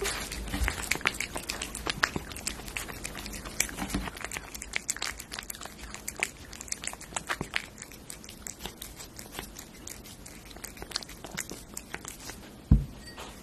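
A cat eating close to the microphone: rapid, wet clicking of licking and chewing on meaty cat food. Dull thumps come about half a second in and around four seconds, and a louder one near the end.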